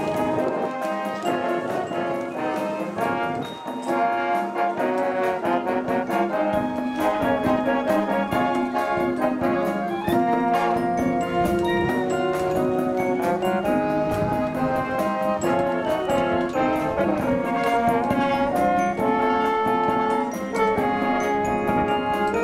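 A school wind band plays an arrangement of a J-pop song, led by brass: French horns, trumpets and trombones, with saxophones, woodwinds and percussion keeping a steady beat.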